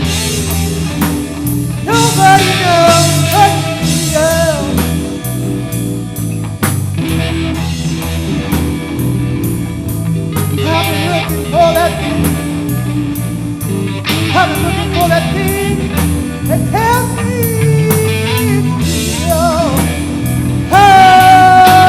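Live blues-rock trio of electric guitar, bass guitar and drum kit playing. The lead guitar solos with bent, sliding notes over a steady bass and drum groove, and holds a loud sustained note near the end.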